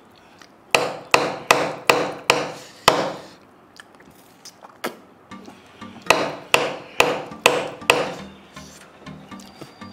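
Cooked mutton marrow bone being knocked to shake the marrow loose: two runs of sharp knocks, six and then five, a little over two a second, with a pause of about three seconds between the runs.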